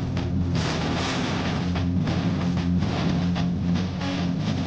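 Background music, with a steady low drone running beneath it.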